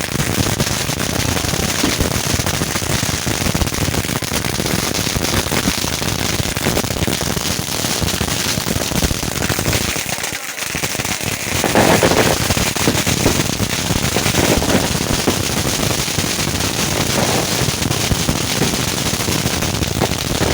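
A long string of firecrackers going off in a dense, rapid crackle of small bangs, with a short lull about ten seconds in before it comes back louder.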